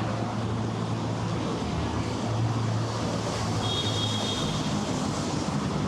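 Steady city traffic noise with a low, even engine hum. A brief high tone sounds about three and a half seconds in.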